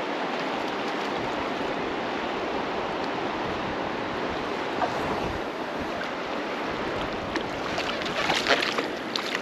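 Shallow river current rushing steadily over a rocky bed, with wind buffeting the microphone at times and a few brief sharp splashy crackles near the end.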